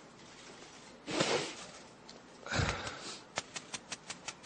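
A man crying at a microphone: a sharp sniff about a second in, then a heavy breath into the microphone, followed by a quick run of clicks, about five a second, typical of press camera shutters.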